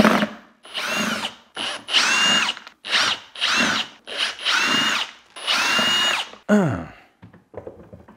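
Ridgid cordless drill-driver backing out screws from a shop vac's fan housing, run in about six short trigger bursts, each a rising whine. The last one winds down with a falling whine. Faint small clicks follow near the end as the screws and housing are handled.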